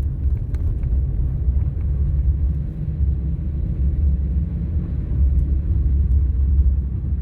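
Steady low rumble of a car's engine and tyres, heard from inside the cabin while driving slowly along a snow-covered street.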